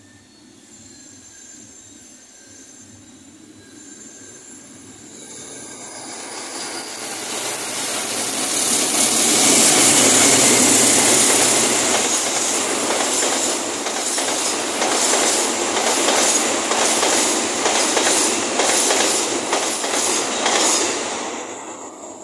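Argo Sindoro passenger train passing at speed: a rush of wheel and carriage noise swells up about three seconds in and stays loud, with regular clicks of wheels over rail joints in the second half, then fades away near the end.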